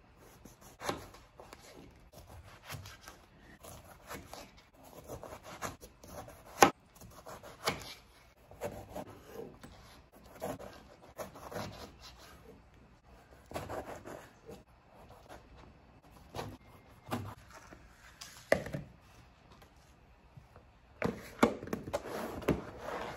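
Kitchen knife cutting through a pomelo's thick rind and knocking on a flexible cutting board, with irregular knocks and scrapes. Near the end, fruit wedges slide off the board and tumble into a bowl.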